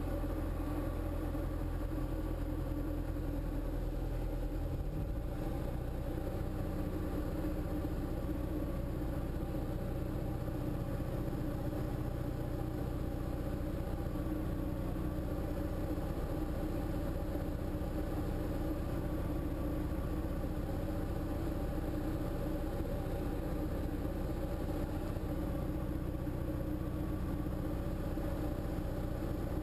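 Steady drone of a Diamond light aircraft's piston engine and propeller, heard from inside the cockpit on the base leg of a landing approach. The lowest note shifts about five seconds in, then holds even.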